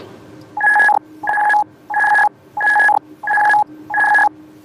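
Eclipse 550 autopilot-disconnect alert: six evenly spaced electronic beeps, each a steady tone about a third of a second long, repeating about every two-thirds of a second, with the jet's steady cabin hum beneath.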